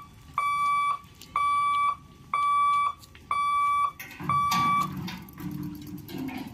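Level-crossing boom barrier's electric warning beeper sounding while the boom lowers: a steady high beep about once a second, five times. It stops about five seconds in, once the barrier is down.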